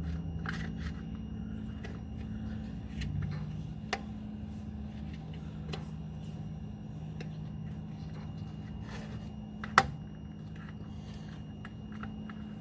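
Small plastic clicks and rattles of the ABS module connector's cover being slid back into place, with one sharp click about ten seconds in, over a steady low hum.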